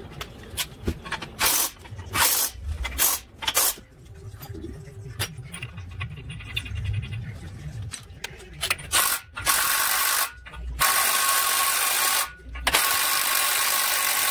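Metal parts and tools clinking, then a cordless impact wrench running in three long bursts about nine seconds in, driving the axle nut at the hub centre.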